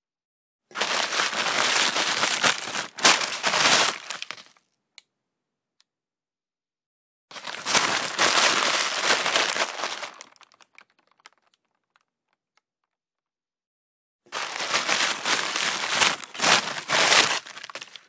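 Paper bag being unpacked: three bouts of rustling and crinkling paper, each a few seconds long with sharp crackles, separated by silence.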